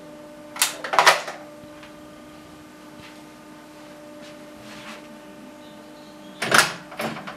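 Intercom handset clattering back into its wall cradle about a second in, then a faint steady hum, and near the end several clicks and rattles of a front door's lock being worked.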